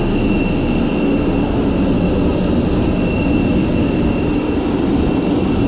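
Jet airliner engines running, a steady low rumble with a thin high whine held on top.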